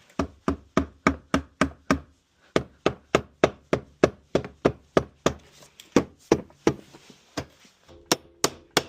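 Sharp knocks struck steadily on an old safe, about three to four a second, pausing briefly twice; the last few ring faintly like metal.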